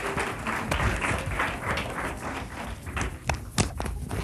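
Audience applause that thins out into scattered claps. Near the end come a few sharper knocks and thumps from clip-on microphones being handled.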